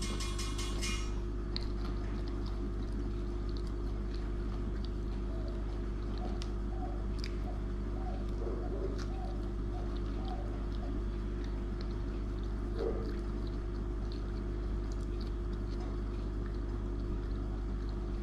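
Faint chewing and mouth clicks from eating a burger, over a steady low electrical hum. A few faint short tones come and go around the middle.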